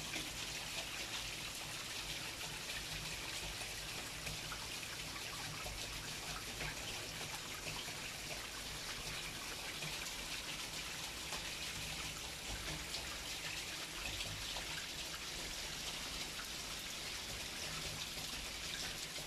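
Steady rain falling: an even hiss dotted with many small drop ticks, unchanging throughout.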